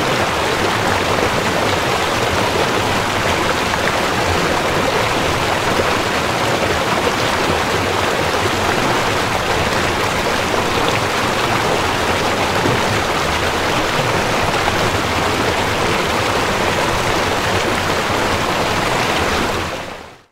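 Steady rush of flowing water, even and unbroken, fading out over the last second.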